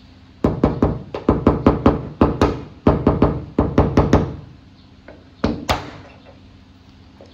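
A quick series of light metallic taps, about four a second, each with a short ring, from a red-handled tool working at the dent-pulling bridge and glued tab on a Nissan Skyline GT-R's aluminium bonnet during dent repair. After a pause, two more taps come close together near the end.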